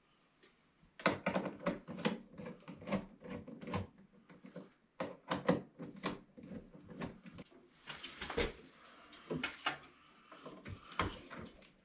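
Irregular knocks and clatter of PVC pipe and fittings being handled, with short quiet gaps between them.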